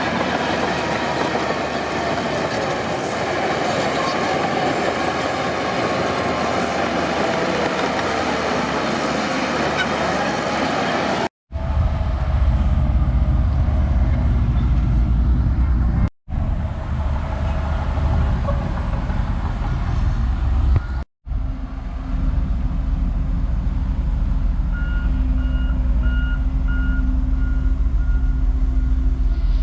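Heavy earthmoving machinery: first the dense clatter and squeal of a crawler bulldozer's steel tracks. After a few abrupt cuts comes a deep diesel engine rumble, and near the end a reversing alarm beeps steadily as a machine backs up.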